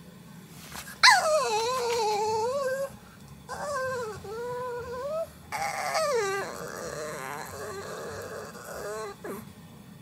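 Several long, high-pitched howls in a row, wavering and sliding in pitch, each held for one to three seconds with short breaks between.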